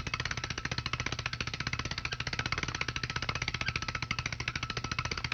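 Rapid, even rattle of strikes, about ten a second, in a cartoon soundtrack, with a faint steady high tone running under it.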